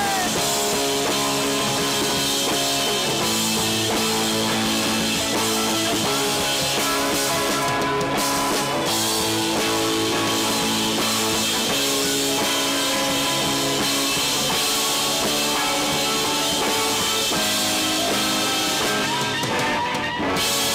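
Live rock band playing an instrumental passage on two electric guitars, electric bass and drum kit. A rising guitar line comes in near the end.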